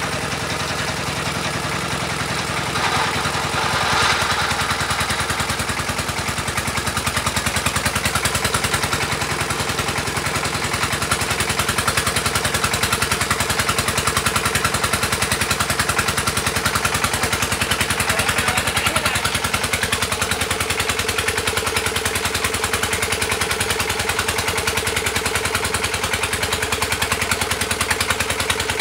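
Engine of the well-drilling pump running steadily, forcing clean water down the well casing, with a brief hiss about three seconds in.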